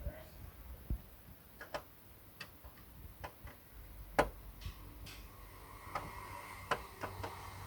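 Scattered light clicks and taps at irregular intervals, with one sharper tap about four seconds in.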